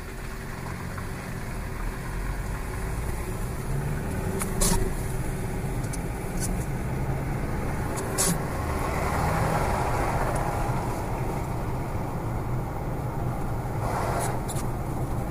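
A car's engine and tyres running on the road, heard from inside the cabin while driving: a steady low rumble, with a few short sharp clicks.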